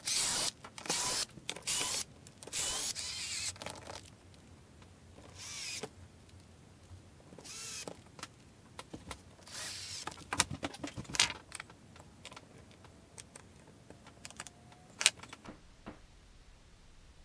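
Cordless drill/driver running in a series of short bursts as it drives screws through bumper feet into a hardwood cutting board. The bursts come over the first ten seconds or so, followed by scattered clicks and knocks of the feet and board being handled.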